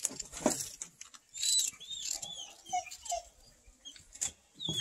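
A crowd of cats eating crunchy cheese-ball snacks: irregular crunching and scuffling, with several short, high squeaky chirps from about a second and a half in.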